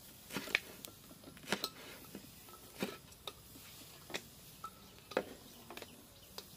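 Cleaver chopping red bell pepper on a wooden chopping block: sharp knocks of the blade striking the wood, about once a second and irregular.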